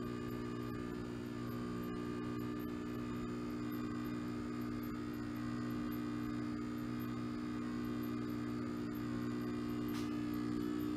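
Riehle torsion testing machine's electric drive humming steadily while it unloads the specimen back toward zero load, with a faint click about ten seconds in.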